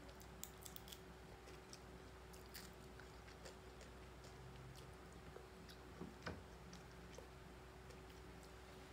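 Faint chewing and small clicking mouth sounds of someone eating fried dried fish with rice by hand, over a steady low hum, with two slightly louder ticks about six seconds in.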